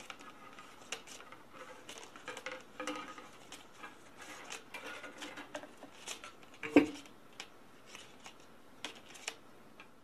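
Copper wire being pulled through a homemade wire stripper, its red plastic insulation split and peeled away: scraping and rustling of wire and insulation with many small clicks, and one sharper knock near the seventh second.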